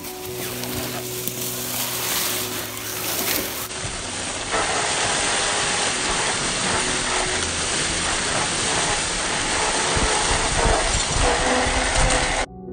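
Radio-controlled rock crawlers driving through deep dry leaves: a steady rustling hiss of leaves and small motors. It gets louder about four seconds in and cuts off suddenly near the end.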